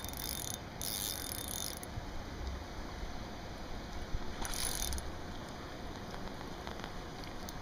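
Fishing reel clicking and buzzing as a hooked steelhead is played on light line: one burst over about the first two seconds and a shorter one a little past the middle.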